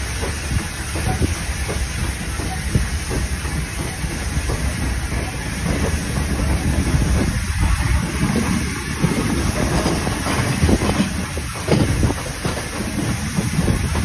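Steam-hauled train moving off, heard from the carriage behind the locomotive: a steady hiss of steam over the rumble of the carriage wheels, with a few clanks as the wheels cross points near the end.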